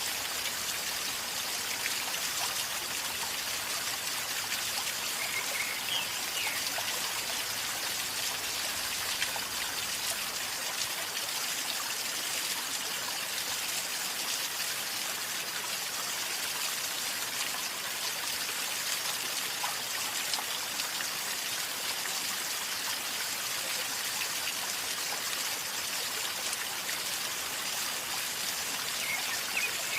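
A river flowing calmly over a shallow bed: steady gurgling and trickling water.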